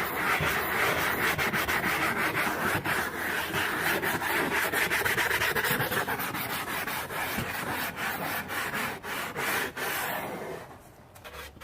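Steady rough rubbing and scraping, dotted with many small clicks, easing off near the end.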